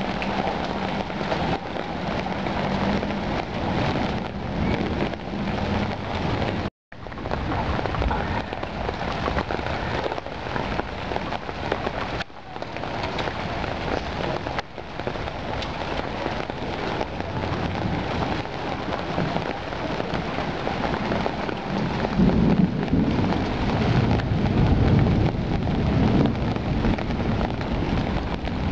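Heavy rain pouring onto flooded pavement and parked cars, a steady dense hiss. A deeper rumble swells for several seconds past the middle, and the sound cuts out for a moment about seven seconds in.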